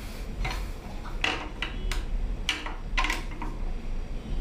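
Metal clinks and taps from the steel blade and fittings of a manual guillotine paper cutter being handled and fitted by hand, about eight sharp knocks at irregular intervals over a low steady hum.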